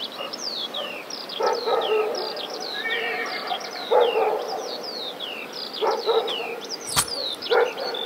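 Village ambience: a dog barking about five times, spaced a second or two apart, over steady quick falling-pitch chirps of birds. A single sharp click comes near the end.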